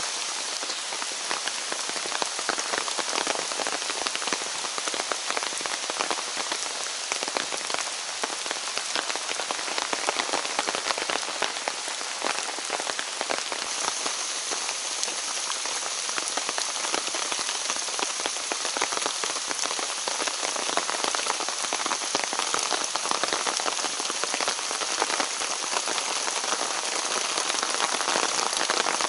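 Steady rain falling: a dense, continuous patter of many drops.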